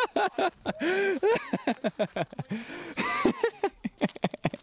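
People's voices in excited, wordless exclamations, with a quick run of short sharp sounds near the end.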